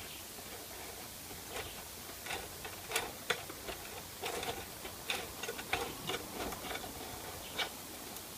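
Irregular light clicks and taps, a dozen or so over about six seconds, as small parts and a hand tool are handled, over a steady faint hiss.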